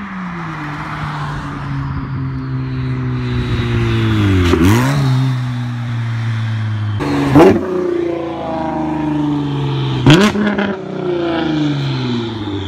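Cars driving past close by, their engine notes rising and falling in pitch. Three loud pass-bys come about 4.5, 7.5 and 10 seconds in.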